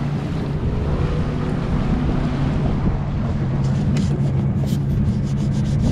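Tour launch's outboard motor running steadily at speed, over a rushing haze of wind on the microphone and water. A few short ticks come in over the last two seconds.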